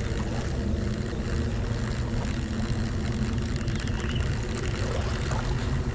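A motor engine running steadily at an even speed, a constant low drone over a background hiss.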